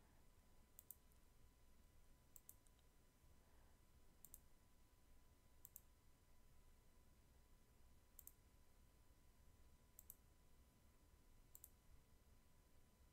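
Near silence broken by faint computer mouse clicks, about seven of them, each a short double tick, a second or two apart.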